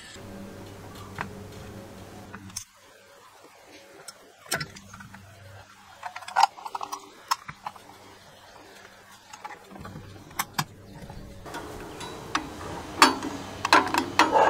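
Scattered clicks and light knocks of small metal and plastic parts as an electric mower's switch box is handled and its cover fitted.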